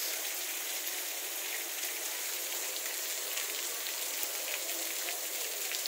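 Steady rain falling on a wet cobblestone street and rooftops: an even hiss with faint scattered drop ticks.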